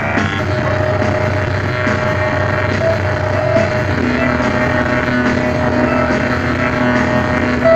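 Background music with long held notes; a lower held note comes in about halfway through.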